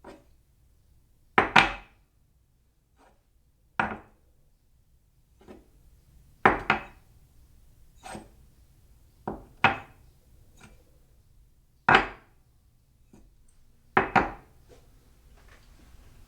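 A cup being set down on its saucer again and again, giving short clinks about every one to two seconds. Several of them come as quick double clinks, where the cup lands and then settles. A few lighter taps and small rattles come near the end.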